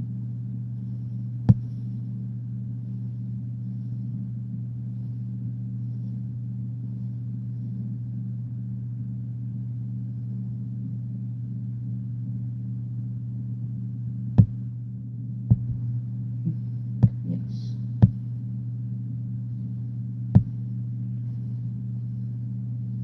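Steady low electrical mains hum, with about six short sharp taps: one early and a cluster of five in the second half, while markers are worked on paper on a desk.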